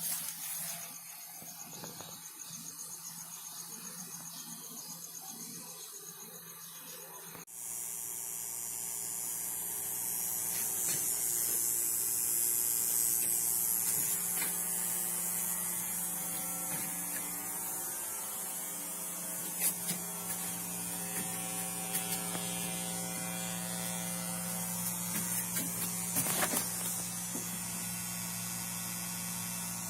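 A steady electrical hum and buzz. About seven seconds in it steps up suddenly to a louder, fuller drone, with a few faint clicks later on.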